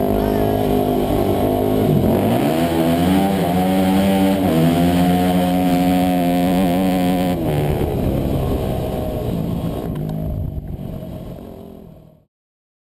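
Dirt bike engine running hard, its pitch dipping and climbing back about two seconds in, then holding steady before fading away and cutting off abruptly near the end.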